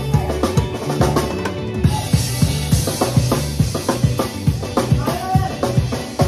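Live band playing an upbeat Mexican song, led by a drum kit with steady kick and snare hits over bass and electric guitar. A cymbal wash comes in about two seconds in.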